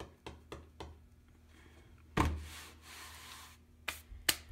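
Handling noise on a work surface: a few light knocks and clicks, then a rubbing noise lasting about a second and a half, then two more clicks.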